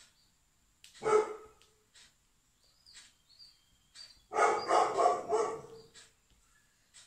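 A dog barking: one bark about a second in, then a quick run of barks from about four to six seconds in.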